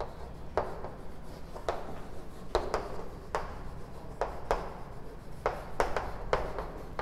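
Chalk writing on a chalkboard: about a dozen short, irregular taps and scrapes as words are written out.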